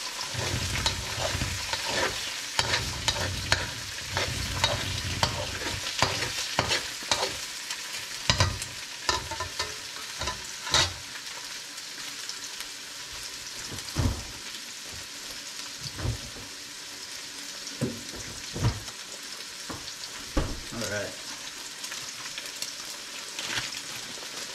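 Eggs frying in oil in a metal wok, sizzling steadily. For the first ten seconds or so a metal slotted spoon scrapes and clicks against the wok as it stirs. After that the sizzling goes on with only a few scattered knocks.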